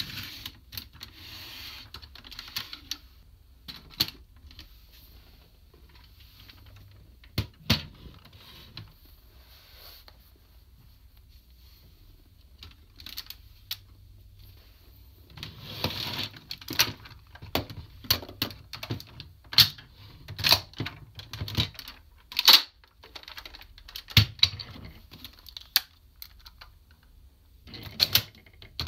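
Hard plastic toy-robot parts being handled and fitted together: scattered sharp clicks and clacks, then a busy run of snaps and clatter from about halfway through.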